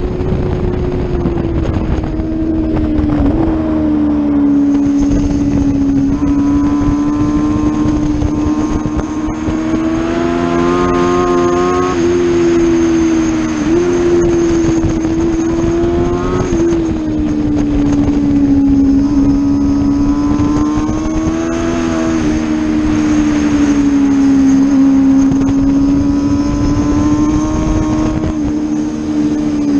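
Sport motorcycle engine running hard at high revs at track speed, its note holding fairly steady with a few sudden steps in pitch at gear changes, over steady wind rush on the microphone.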